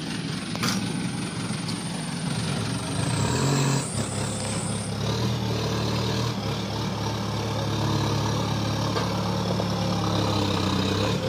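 Diesel engine of a pick-and-carry mobile crane running steadily while it hoists a heavy steel frame, its note shifting about four seconds in and then holding even. A single sharp click comes about a second in.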